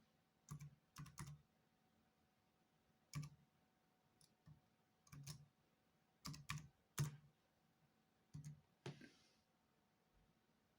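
Faint, irregular keystrokes on an HP 630 laptop keyboard, about a dozen separate taps, some in quick pairs.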